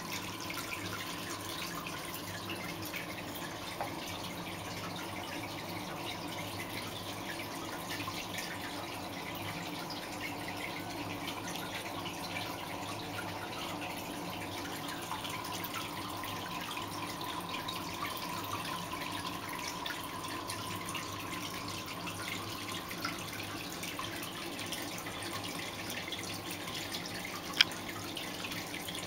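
Aquarium filter returning water into the tank, a steady trickling and dripping over a faint hum. A single sharp click near the end.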